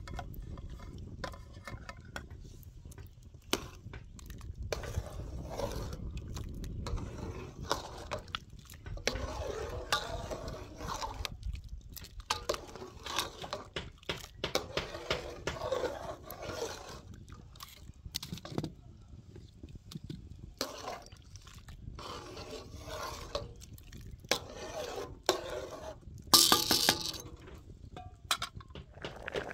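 Metal utensils clinking and scraping against cooking pots as food is stirred and handled, in irregular knocks and clicks, with one louder clatter near the end.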